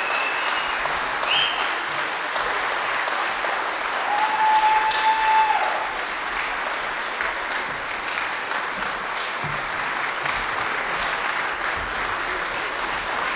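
Audience applauding steadily, sustained clapping from a seated crowd.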